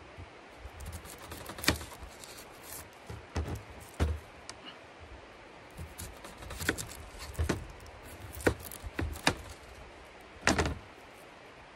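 Kitchen knife cutting and peeling an onion on a chopping board: about a dozen irregular knocks and cracks of the blade, a second or so apart.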